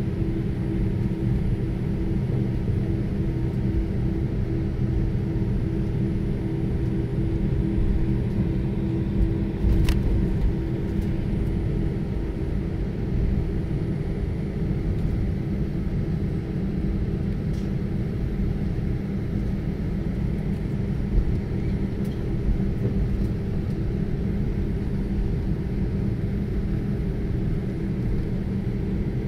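Airbus A319-132 jet engines (IAE V2500) heard from inside the passenger cabin at taxi power: a steady low rumble with a hum. There is a single brief click about ten seconds in.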